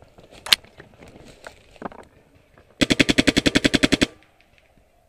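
Paintball marker firing: a single sharp shot about half a second in, a weaker one near two seconds, then a rapid burst of about fifteen shots lasting just over a second.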